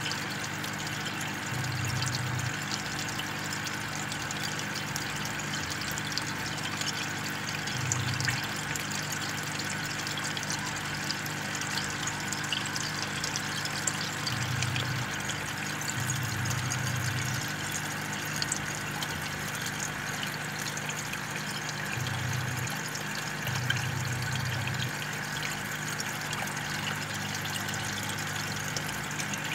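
Aquarium air stone bubbling steadily underwater, with a low hum underneath that swells in several short stretches.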